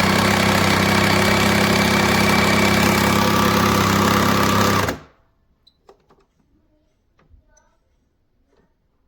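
Breville Barista Touch Impress espresso machine running during milk frothing: a steady pump buzz with hissing steam, which cuts off suddenly about five seconds in. A few faint clicks follow.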